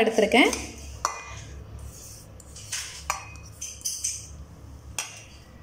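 Grated coconut poured and scraped from a bowl into a steel mixer-grinder jar: a soft rustle of the falling coconut, with a few sharp clinks of the bowl against the jar.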